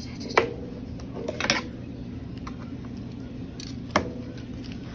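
Kitchen knife knocking and scraping against a metal roasting pan and its rack while carving roast chicken: a sharp metallic click with a short ring about half a second in, a brief clatter around a second and a half in, and another sharp click near four seconds, over a steady low hum.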